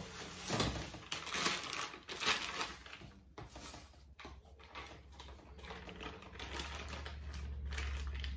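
Icing spatula scraping and tapping as buttercream icing is scooped and worked onto the cake: irregular soft scrapes and clicks, busiest in the first few seconds. A low steady hum comes up near the end.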